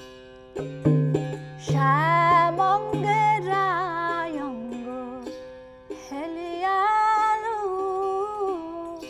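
Woman singing a Bengali Baul song in two long, ornamented phrases, the first starting about two seconds in. Under the voice a plucked ektara rings a steady drone, with sharp strokes on a small duggi drum.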